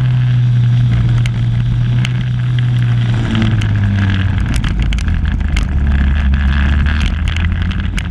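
Ariel Atom 300's supercharged 2-litre four-cylinder engine running hard on a track lap, heard from a camera mounted on the car. The engine note drops about three seconds in and drops again a couple of seconds later.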